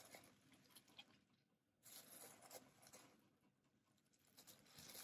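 Near silence with faint rustling and small clicks of a bamboo sushi mat being pressed and rolled by hand around a nori roll, a little louder about two seconds in and again near the end.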